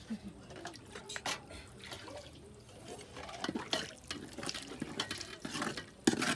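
Beans in their liquid being transferred into a large metal cooking pot: wet sloshing and dripping with scattered small clicks, and a sharp knock near the end.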